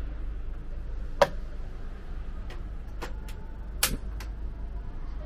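Portable gas stove's igniter clicking as the knob is turned to light the burner: about six sharp clicks spread over a few seconds, the loudest about a second in, over a steady low rumble.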